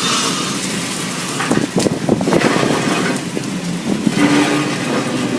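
Storm rain and wind, a loud steady rushing noise with a few short knocks about a second and a half to two seconds in.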